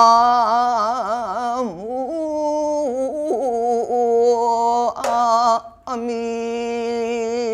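Solo elderly woman's voice singing sijochang, Korean classical sung verse, drawing out long held notes with a slow, wide wavering vibrato and stepping between pitches. The line breaks briefly about six seconds in, then resumes on a held note.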